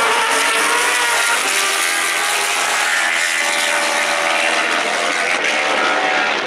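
Superbike racing motorcycles running at high revs, several engines heard at once, their pitch rising and falling.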